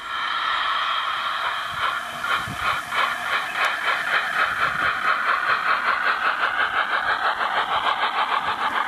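An O gauge model LNER A4 Pacific's DCC sound decoder plays steam locomotive exhaust: quick, regular chuffs with hiss, about four beats a second, as the engine hauls its train.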